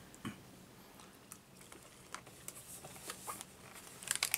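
Faint, scattered small clicks and mouth sounds, with a quick run of sharp ticks near the end: hard candies being sucked and clicked in the mouth.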